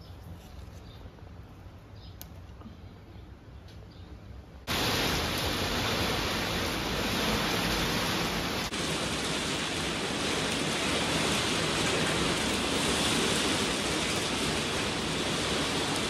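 Heavy rain pouring down in a sudden downpour: a loud, steady hiss that starts abruptly about five seconds in, after a faint, quiet opening.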